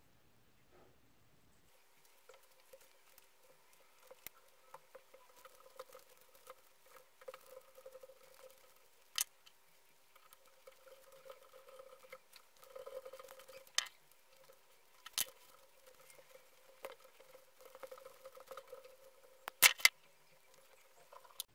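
Faint handling sounds: scattered light clicks and taps over a faint steady hum. Sharper clicks come about nine, fourteen and fifteen seconds in, and there is a close pair, the loudest, near the end.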